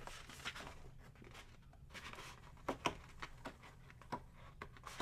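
Sheets of 12x12 scrapbook paper being handled and leafed through by hand: faint sliding and rustling, with a few brief crisp flicks as pages are turned.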